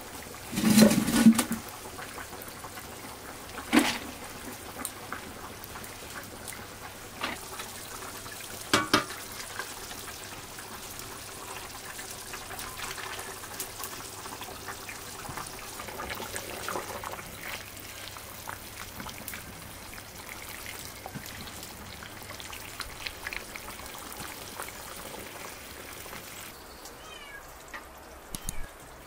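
Metal cookware being handled over a wood cooking fire: sharp clinks of a ladle and pot near 4 and 9 seconds, over a steady low hiss and crackle from the fire. A short loud sound about a second in.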